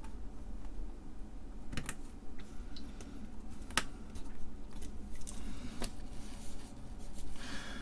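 Scattered light clicks and taps of hands pressing chips into IC sockets on a circuit board and handling a small metal tool, with a pen scratching on paper near the end.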